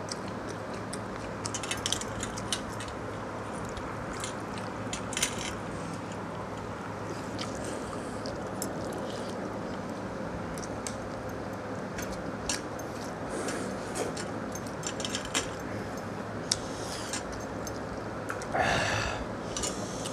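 Close-up eating sounds: chewing, lip smacks and fingers squishing watered rice (pakhala) in steel bowls, heard as scattered short wet clicks over a steady low hum. A louder, longer mouth sound comes near the end.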